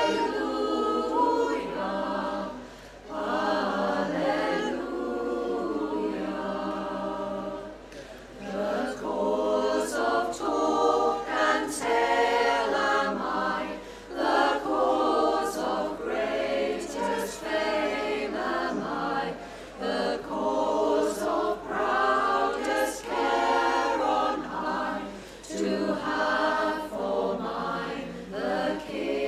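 Women's choir singing a cappella in several voice parts, with no instruments. The phrases break briefly about 3, 8, 14 and 25 seconds in.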